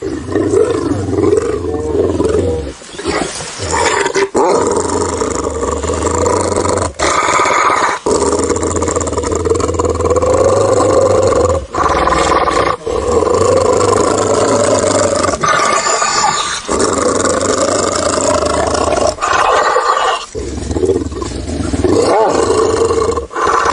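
A run of spliced creature sound-effect clips: drawn-out roars and growls from a large beast, each clip cut off sharply and followed by the next, about nine in a row.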